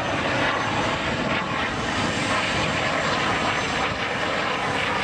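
An Airbus Helicopters EC145 T2 flying past, its main rotor and twin Arriel 2E turboshaft engines making a steady, even rotor-and-turbine noise.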